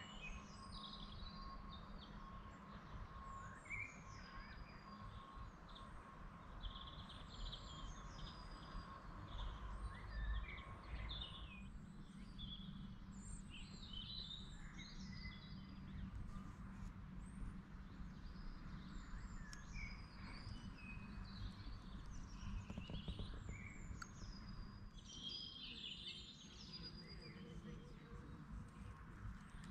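Several birds singing and chirping in overlapping phrases, some with quick falling whistles, over a low background rumble. A faint steady high hum runs underneath and stops about twelve seconds in.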